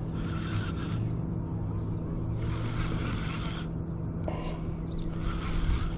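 Baitcasting reel cranked in three short spells, each a whirring hiss, over a steady low hum.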